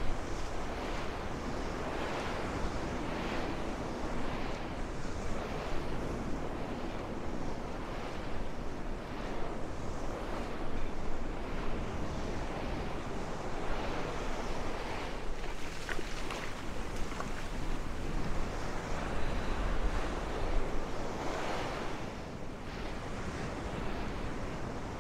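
Small Gulf surf breaking and washing up the beach, swelling every few seconds, with strong wind rumbling on the microphone and gusting hardest near the end.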